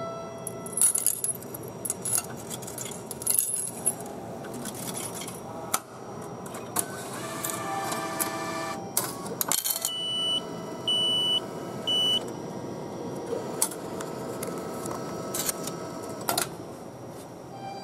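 Coins clinking as they are fed into a ticket vending machine, with scattered sharp clinks. About ten seconds in, the machine beeps three times on one high tone.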